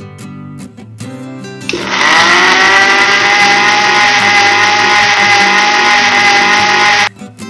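Electric mixer grinder switched on about two seconds in, its motor spinning up quickly and then running steadily as it grinds soaked yellow moong dal into a coarse paste in the steel jar, cutting off abruptly near the end.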